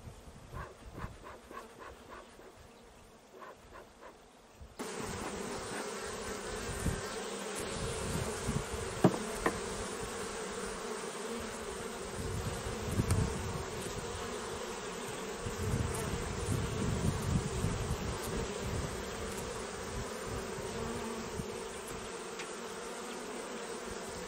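Honeybees buzzing steadily over an open hive, with a few light wooden knocks as frames are handled. The buzzing starts abruptly about five seconds in, after a quieter stretch of small clicks.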